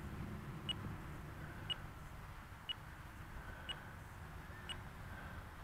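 A short, high electronic beep repeating about once a second, over a faint low outdoor rumble.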